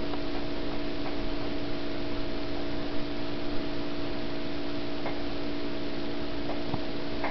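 Steady electrical hum on several fixed pitches over an even hiss, with a few faint ticks.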